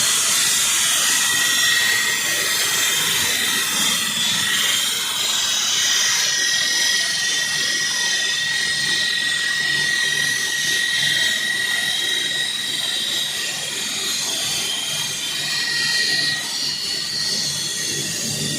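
Walk-behind floor saw with a diamond blade cutting into a concrete floor: a steady, loud grinding hiss with a high whine held at one pitch.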